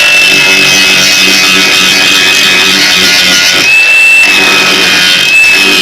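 Angle grinder with a grinding wheel grinding down welds on sheet-metal body panels: a loud, steady high whine over the rasp of the wheel on metal, its pitch wavering slightly a few times as the load changes.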